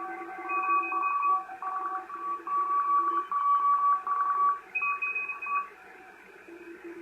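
Morse code (CW) signals received on an Icom IC-718 ham radio transceiver: several stations at different pitches keyed on and off in dots and dashes over band hiss, the loudest a high beeping tone. The keying stops about five and a half seconds in, leaving hiss, and a lower-pitched signal starts keying again near the end.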